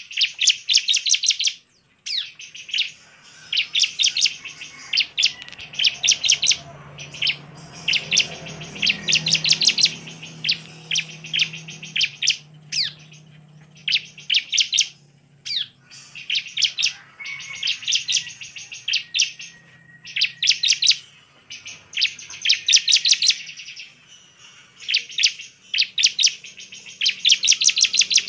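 Bar-winged prinia (ciblek) singing in full voice: bursts of rapid, sharp repeated chirps, each lasting a second or so and coming about every two seconds.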